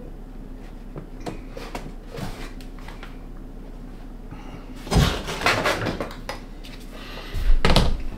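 Laminate flooring planks and offcuts being handled on a subfloor: light scattered knocks and scrapes, with two louder bursts of knocking and scraping about five seconds in and near the end.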